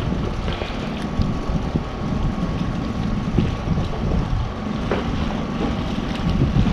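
Wind buffeting the microphone over the steady wash of the sea against the pier, a continuous low rumble with no clear events.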